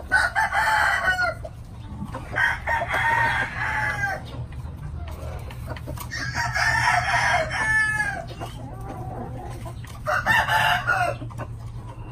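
Roosters crowing: four long crows, each about one and a half to two seconds, spaced a few seconds apart.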